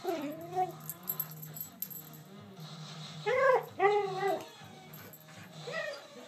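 Husky whining in short rising-and-falling cries: one at the start, two louder ones about three and a half seconds in, and a softer one near the end. The dog is excited at being asked whether it wants to go for a ride.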